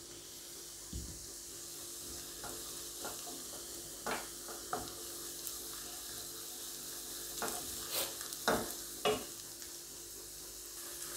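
Onions and green chillies sizzling softly in coconut oil in a non-stick pan, with a wooden spatula stirring and scraping against the pan a few times. The onion is being sautéed until it just softens.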